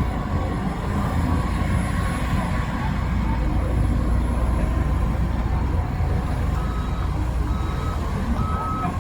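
Heavy diesel earthmoving machinery running steadily with a low engine sound. About two-thirds of the way through, a reversing alarm starts beeping at an even pace, roughly one beep a second, as a machine backs up.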